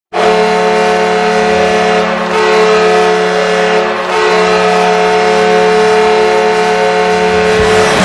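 Georgia Swarm arena goal horn sounding one long, loud blast of several tones at once, dipping briefly twice, with the goal song kicking in right at the end.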